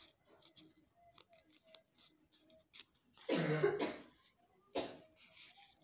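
A person coughs about three seconds in, loud and lasting under a second, followed by a shorter cough or throat-clear about a second later. Faint light clicks from handling paper come before it.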